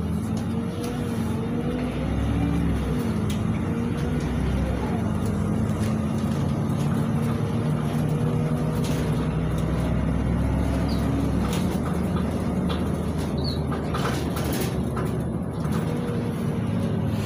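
Inside the cabin of a LiAZ 5292.71 city bus driving along, its MAN E0836 compressed-natural-gas engine running under way with steady road rumble. The engine note rises and dips about two to three seconds in, then runs steady.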